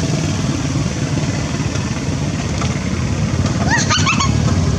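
A small engine running steadily, a low rumble. A few short, high rising chirps come through about four seconds in.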